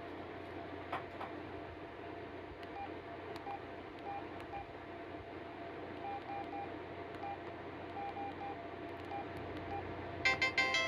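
Samsung SGH-T319 mobile phone's keypad beeping faintly: short single-pitch beeps in uneven clusters, with a few light clicks, as its menu is worked, over a steady hiss. About ten seconds in, a ringtone starts playing loudly from the phone's speaker, a bright multi-note electronic melody.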